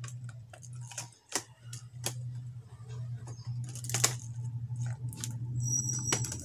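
Plastic clicks and taps as a replacement keyboard is pressed down and seated into an HP Compaq Presario V6000 laptop's frame, with a brief scraping rustle about four seconds in. A steady low hum runs underneath.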